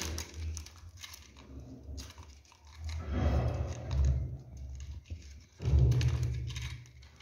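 Handling noise from electrical cables and fish wire being worked at a conduit box: rustling and scraping with low thuds, in irregular bursts, the loudest about three seconds and again near six seconds in.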